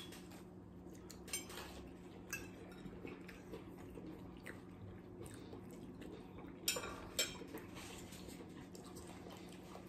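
Forks clinking lightly against plates during a meal: a few sparse taps, two clearer ones close together about two-thirds of the way in, over a faint steady low hum.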